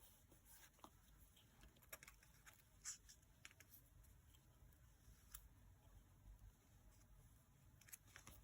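Faint, scattered small ticks and rustles of paper and stationery being handled, a few sharp clicks among them, over a low steady hum of room tone.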